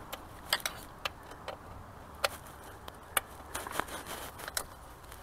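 Irregular sharp metal clicks and clinks of a socket wrench and extension working the 10 mm fuel-rail bolts loose.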